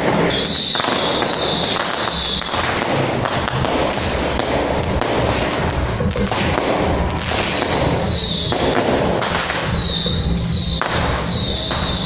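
Strings of firecrackers crackling rapidly and without a break, with short, high, falling squeals coming back again and again over the top.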